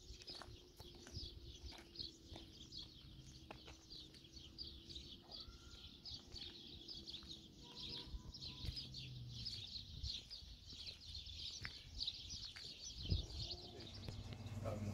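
Many small birds chirping in a dense, continuous chatter, with a few scattered knocks.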